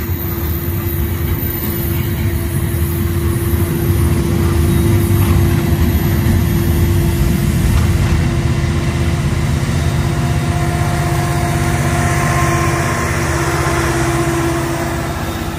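A freight train's cars rolling past with a steady low rumble and rail noise. From about ten seconds in, a Union Pacific diesel locomotive's engine drones in and grows as the unit comes alongside.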